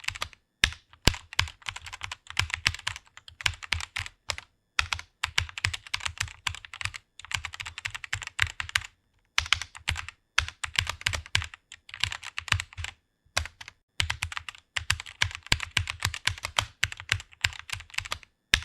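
Fast typing on a computer keyboard: quick runs of key clicks broken by short pauses of about half a second.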